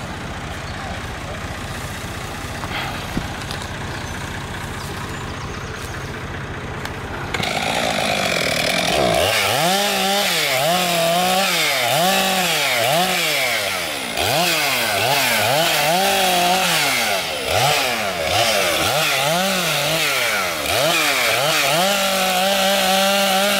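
Two-stroke chainsaw cutting into a felled conifer trunk. For about the first seven seconds an engine runs steadily and more quietly; then the saw gets louder and its pitch climbs and falls over and over, about once a second, as it is throttled through the cuts. Near the end it holds a steady high pitch.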